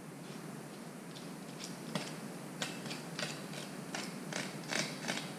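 Chef's knife chopping through a mackerel and knocking on a plastic cutting board: about a dozen sharp, irregular knocks, starting about two seconds in.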